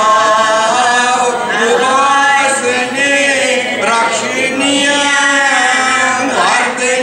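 Voices chanting a devotional hymn together, a man's voice loudest, in long held notes with short pauses for breath.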